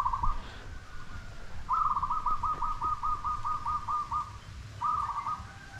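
A bird calling in short runs of quick, evenly repeated notes, about five a second, the longest run a dozen or so notes in the middle.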